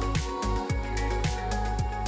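Background music with a steady drum beat over sustained synth-like tones.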